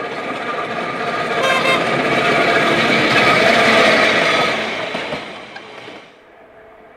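Manx Electric Railway No. 34, a diesel-converted locomotive, passing close by with an open trailer car: engine and wheels on the rails growing louder to a peak about three to four seconds in, then falling away sharply near the end. A brief horn toot sounds about a second and a half in.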